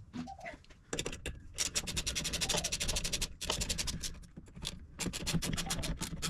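Hand ratchet wrench clicking rapidly in runs as a bracket bolt is run in, with short pauses between strokes.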